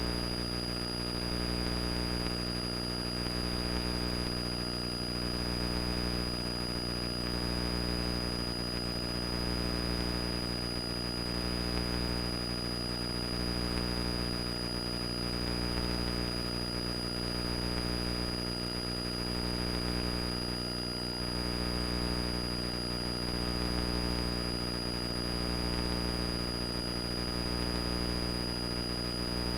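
Cessna 172's piston engine and propeller running steadily at climb power, heard from inside the cabin. The drone swells slightly every couple of seconds, and a thin steady high whine sits over it.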